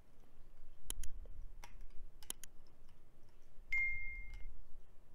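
Several sharp mouse-click sound effects, then a short steady bell ding about two-thirds of the way in, from an on-screen subscribe-button animation. Under them is faint handling noise as a small pocket screwdriver tightens an eyeglasses hinge screw.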